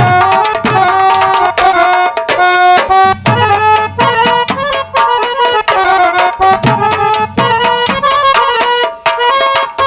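Instrumental Hindi film-song tune played on harmonium, with the melody stepping from note to note, over fast dholak and nakkara drumming with deep bass thumps.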